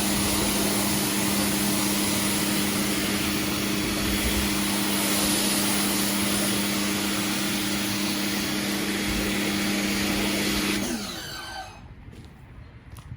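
Pressure washer running steadily with a wide spraying hiss, then switched off about eleven seconds in, its motor pitch sliding down as it winds down.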